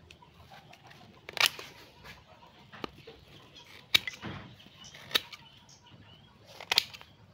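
Pruning shears snipping through the woody roots of a collected bonsai tree: several sharp cuts, each a second or so apart.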